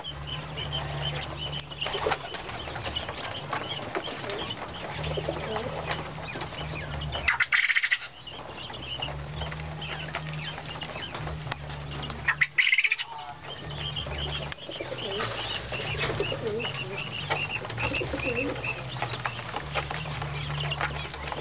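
Caged quail peeping on and off, with two brief loud bursts of wing-flapping, about seven and twelve seconds in, as the birds are disturbed. A low steady hum runs underneath.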